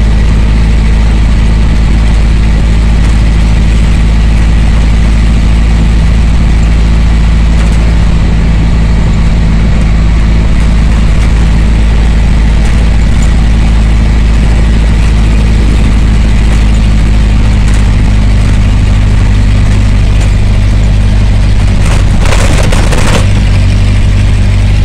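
Steady low engine drone and road noise heard from inside a moving vehicle's cabin, with a brief louder rush near the end.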